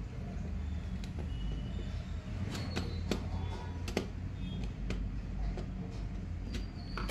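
Screwdriver turning and tightening the terminal screw of a plastic modular switch: scattered small clicks and scrapes of the tip on the screw head and housing, over a steady low hum.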